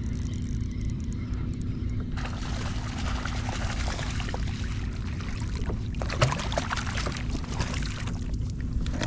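Water splashing and sloshing beside a kayak, starting about two seconds in with many small splashes, likely a hooked trout thrashing at the surface, over a steady low wind rumble on the microphone.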